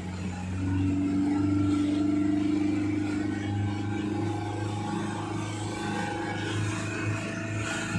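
Motorboat engine running steadily at speed while towing, with water rushing and splashing in the wake.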